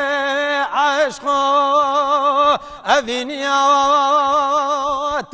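A man singing a Kurdish folk song alone, without accompaniment, in long held notes with strong vibrato, broken twice by short pauses for breath.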